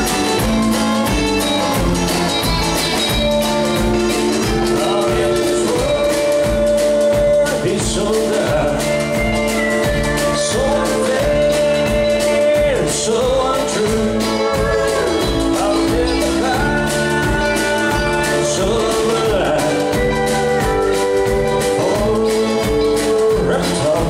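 Live country band playing with a steady drum beat: a man singing over acoustic guitar, pedal steel guitar, electric bass and drums.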